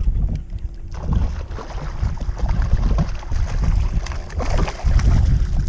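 Wind buffeting the microphone, with water splashing as a hooked largemouth bass thrashes at the surface beside the boat, the splashing strongest in the second half.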